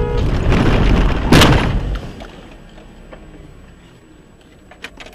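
Car collision caught on a dashcam: a car horn sounds briefly at the start over loud road noise, which builds to a single heavy impact about a second and a half in, then dies away to a few faint knocks.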